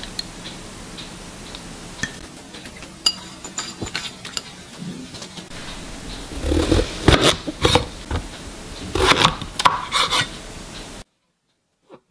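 A spoon clicks lightly on a ceramic plate a few times. Then a santoku knife cuts through a king oyster mushroom and knocks on a wooden cutting board in two bursts of strokes, the loudest sounds here. The sound cuts off suddenly near the end.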